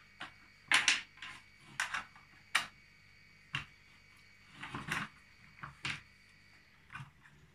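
Irregular clicks and knocks of a toy house's plastic roof and window frames being handled and pressed into place by hand, about a dozen sharp taps with short pauses between.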